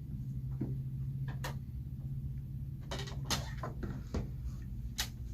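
Light clicks and knocks of hard plastic graded-card slabs being handled and set against one another, about eight of them, mostly around the middle and near the end, over a steady low electrical hum.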